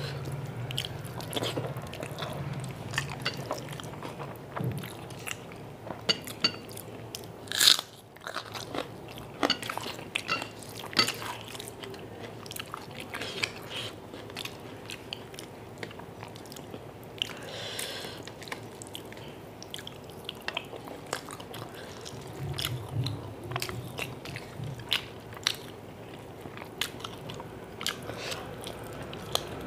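Close-up eating sounds of a person eating rice and chicken curry by hand: wet chewing and mouth clicks, with fingers mixing rice on a steel plate. Many small sharp clicks throughout, with one louder snap about eight seconds in.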